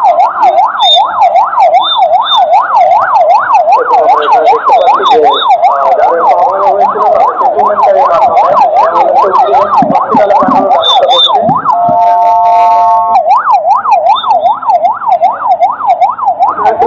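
Ambulance siren in yelp mode, sweeping rapidly up and down about twice a second. A little past halfway it switches for about a second to a steady horn-like blast, then goes back to the yelp.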